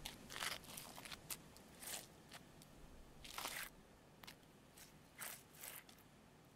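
Footsteps crunching on rough ground, an uneven run of steps that grows fainter as the walkers move away.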